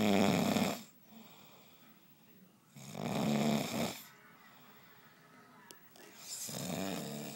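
Snoring: three loud, low, buzzing snores about three seconds apart, each lasting about a second, with quiet breathing between them.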